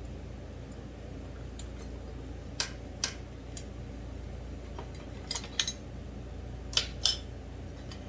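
Metal tools and small chainsaw engine parts clinking and knocking on a workbench during disassembly: a handful of sharp clicks, two about two and a half seconds in, a quick cluster a little past five seconds and two more near seven seconds, over a steady low hum.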